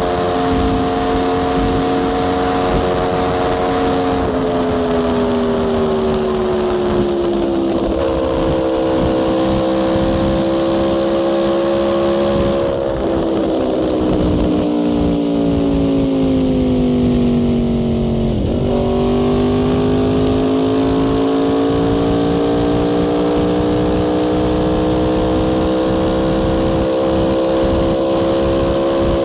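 Aprilia Tuono V4 R's V4 engine under way on a highway: revs hold steady, fall away over a few seconds, step up, fall again for several seconds, then dip briefly and climb slowly and steadily to the end. Wind rush runs under the engine.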